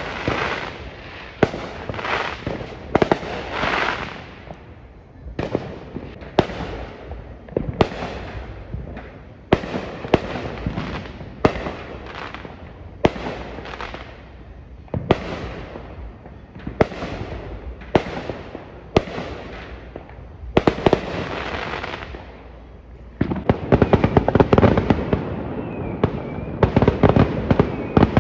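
Fireworks going off: a string of sharp bangs, roughly one every second, each with a short crackling tail. From about twenty-three seconds in comes a dense run of rapid crackling pops.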